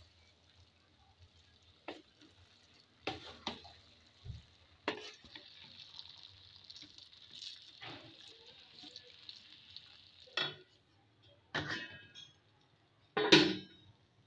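A wooden spatula stirring khichuri in a pan, with irregular scrapes and knocks against the pan over a faint sizzle; the loudest knock comes near the end.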